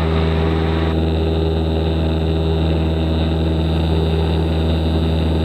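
Cessna 172 Skyhawk's four-cylinder piston engine and propeller droning steadily at climb power, heard inside the cockpit.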